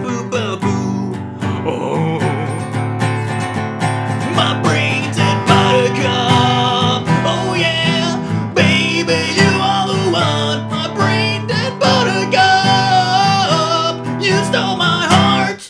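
Instrumental break in a country-style novelty song: strummed acoustic guitar with a wavering melody line over it, stopping abruptly at the end.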